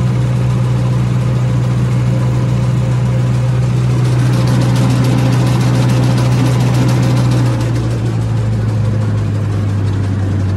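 Massey Ferguson tractor's diesel engine running steadily at raised speed while driving with a straw reaper hitched on; about seven and a half seconds in the engine note drops to a lower speed.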